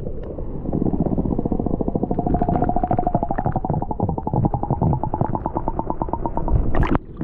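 Underwater sound picked up by a submerged camera: a rapid, even pulsing of about ten strokes a second under a steady hum, which cuts off abruptly near the end.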